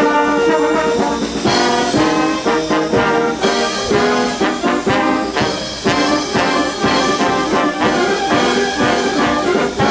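Brass band playing, with steady drum beats under the held brass notes.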